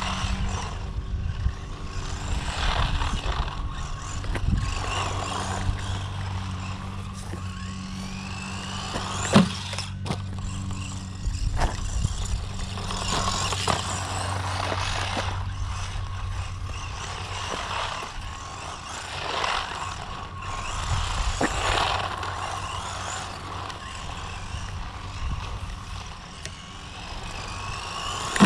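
Brushed electric motor of a 1/16-scale RC monster truck on a 3S LiPo whining up and down through repeated fast runs, with the pitch rising as it speeds up, over a low steady hum. A sharp knock about nine seconds in.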